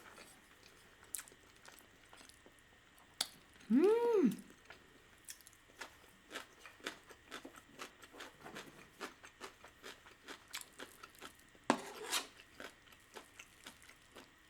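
A person chewing a mouthful of risotto close to the microphone, with many small wet mouth clicks. About four seconds in comes a short hummed 'mm' that rises and falls in pitch, and near twelve seconds a brief rush of noise.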